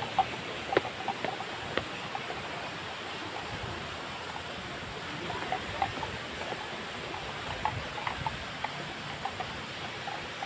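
Steady outdoor background hiss with scattered faint short clicks and ticks, a few sharper ones in the first two seconds.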